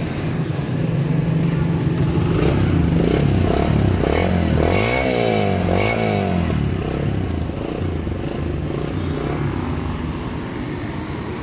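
Yamaha YBR125's single-cylinder four-stroke engine idling, revved up twice in the middle with the throttle and falling back to idle.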